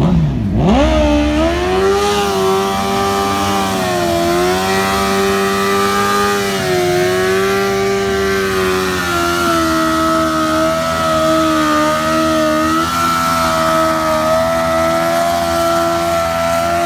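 Car engine revving hard during a burnout: it climbs steeply in the first two seconds, then is held at high revs with small dips and wobbles over the hiss of spinning tyres.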